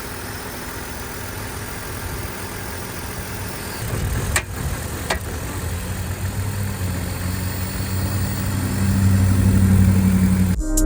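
2004 BMW 325i's 2.5-litre inline-six engine running. About four seconds in there are two sharp clicks, after which the engine note grows louder and stays steady to the end.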